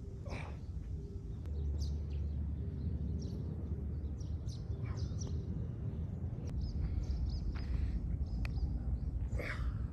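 Outdoor ambience: scattered bird chirps over a steady low rumble, with a couple of brief scuffs near the start and near the end.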